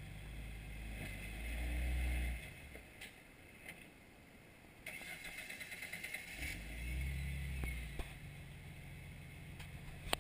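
Jeep Wrangler TJ engine revving up in two slow swells while crawling over rock, the louder one about two seconds in and another about seven seconds in. From about five seconds in there is a rough hiss with small clicks over it.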